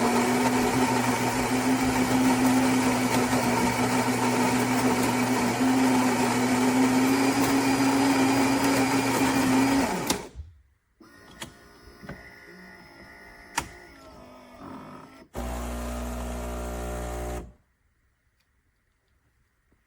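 Fully automatic Philips espresso machine making a single espresso. Its built-in grinder runs steadily for about ten seconds. A quieter stretch with light clicks follows, then a loud low pump hum about fifteen seconds in, lasting about two seconds before it stops.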